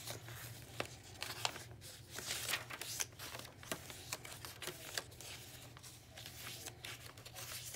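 Pages of a handmade junk journal being turned by hand: paper and cardstock rustling and flapping, with a scatter of light ticks as pages catch and settle.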